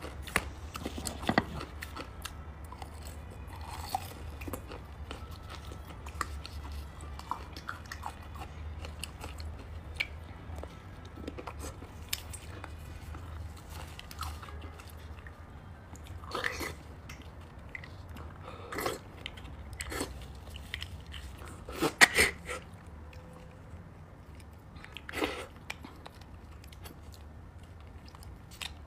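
Close-miked eating sounds of beef bone marrow: chewing and wet mouth smacks with scattered sharp clicks, the loudest a cluster about 22 seconds in, over a faint low hum.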